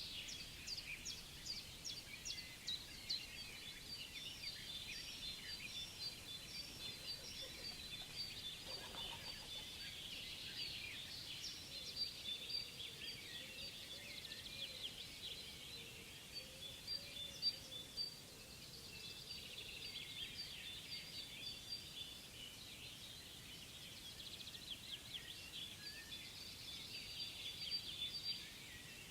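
Songbirds singing, a continuous chorus of overlapping high chirps and rapid trills.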